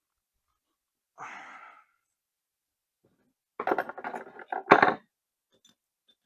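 Zenith carburetor parts handled on a workbench during teardown: a brief scrape about a second in, then a quick run of metallic clinks and knocks, the loudest near the end of it.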